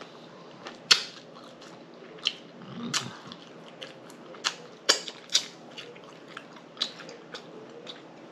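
Close-miked mukbang eating: chewing and lip smacking, heard as irregular sharp wet clicks about once a second.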